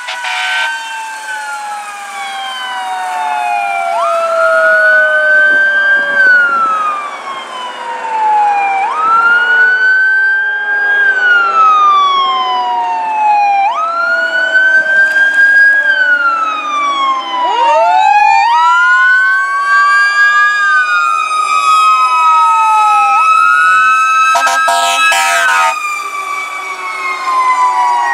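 Fire engine's siren sounding as it passes, wailing up sharply and falling slowly about every four and a half seconds, with a second siren tone gliding alongside. Another siren winds up from a low growl about two-thirds of the way through and holds high. A few short horn blasts sound near the end.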